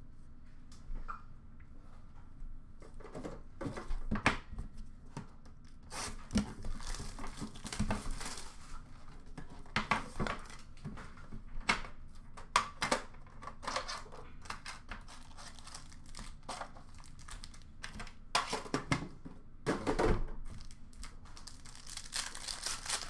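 Hockey card packs being opened by hand: foil wrappers tearing and crinkling in irregular bursts, with light clicks and knocks from handling the metal tin and cards.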